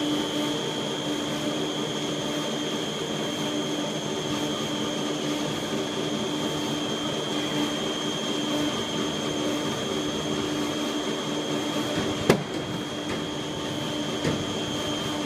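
3D snack food extrusion line running: a steady machine hum with a high, even whine over it, and one sharp knock about twelve seconds in.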